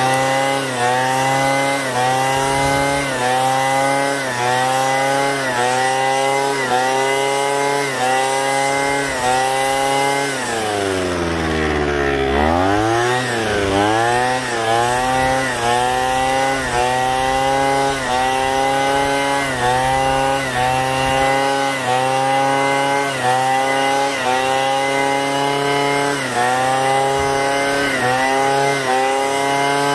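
Small gas engine of lawn equipment running at high speed while cutting tall grass, its pitch sagging and recovering about once a second under the load. About ten seconds in it slows right down, then picks back up to full speed by about thirteen seconds.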